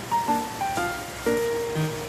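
Background instrumental music: a gentle melody of plucked notes, a few a second, each ringing on briefly.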